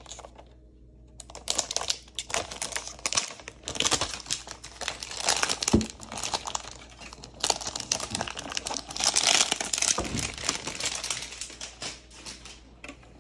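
Clear plastic protective film crinkling and crackling as it is peeled and pulled off a new power supply, in dense irregular bursts starting about a second in.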